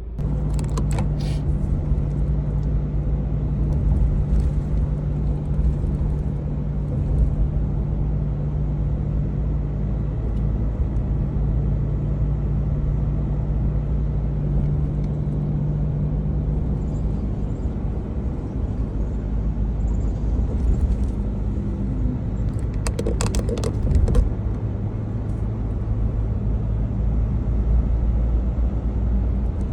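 Car driving along, a steady low engine and road rumble with a constant hum. A short cluster of clicks comes about 23 seconds in.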